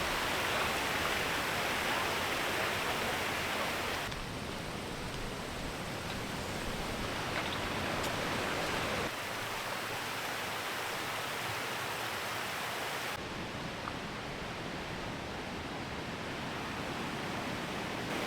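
Rushing water of river rapids: a steady roar of white water. It shifts abruptly in level and tone about four, nine and thirteen seconds in.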